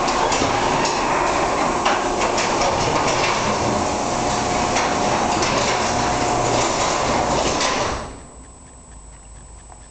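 Garage door rolling along its metal tracks, with a loud steady clatter of many small clicks from its rollers, stopping suddenly about eight seconds in.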